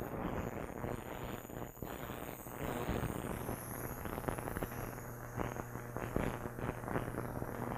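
Small heated ultrasonic cleaner running with a carburetor body soaking in water and detergent: a steady low hum under a dense crackling hiss from the tank, as it pulses to shake dirt out of the carburetor passages.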